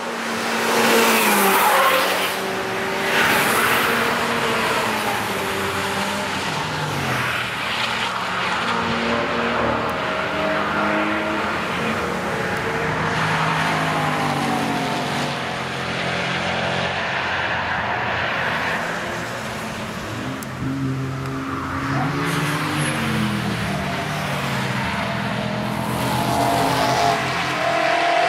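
Several performance cars passing one after another at speed on a racetrack. Their engine notes rise and fall in pitch as they accelerate and change gear, loudest in the pass-bys near the start. Near the end, BMW M3 E92 coupés with their V8 engines are heard.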